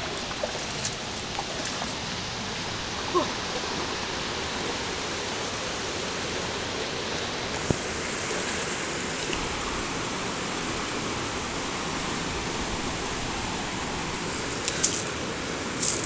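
Mountain river rushing over rocks: a steady noise of fast-flowing water, growing hissier about halfway through. A few sharp knocks come near the end.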